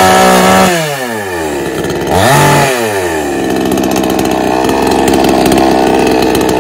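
Chainsaw engine revved high, dropping back about a second in, revved briefly again a little after two seconds, then running steadily at lower revs.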